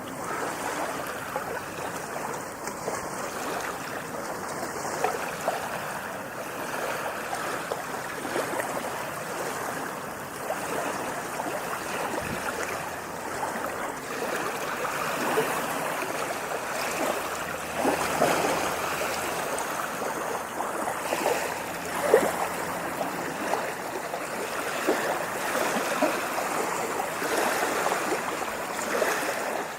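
Steady rush of moving water, with many small splashes and gurgles rising and falling through it.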